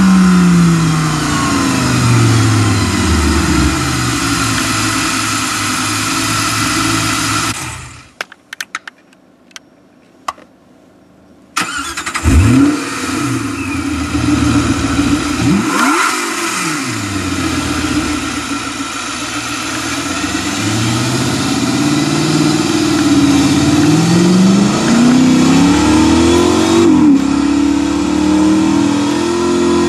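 Simulated engine sound from the XLR8 car-sound phone app: revs falling away, then cut off for about four seconds with a few clicks. About twelve seconds in it starts again with an engine start and a quick rev, then revs repeatedly climbing and dropping back.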